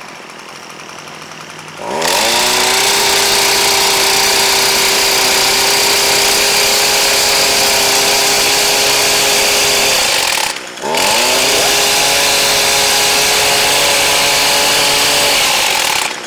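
Small two-stroke engine of an Echo SRM230 extended-reach hedge trimmer idling, then revved to full throttle with a fast rising whine and held steady. About 10 s in it drops off briefly, then revs up again and holds before falling back toward idle. This is the test run after repair of its no-start, runs-and-dies fault, and it holds full throttle without dying.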